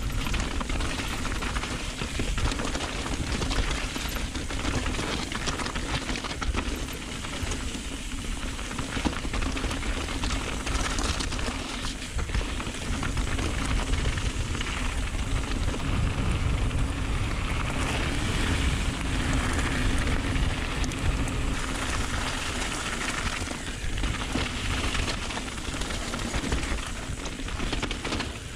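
Downhill mountain bike running fast over a rough, stony trail: a continuous rush of tyre and wind noise with many small clatters from stones and the bike's rattling parts.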